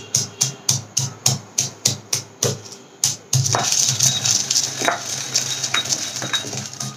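Background music with a steady electronic beat, about three to four beats a second, that gets denser about three seconds in. Under it is a stone pestle pounding and grinding fried dal and chillies in a stone mortar.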